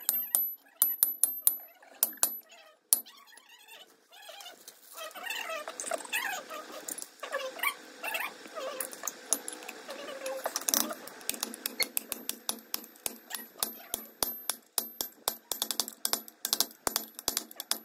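Steel rotavator parts clinking and clicking as a bearing housing is worked down over a bearing on the shaft. There are scattered sharp clinks, a stretch of thin wavering squeaks in the middle, and a fast run of small clicks through the second half.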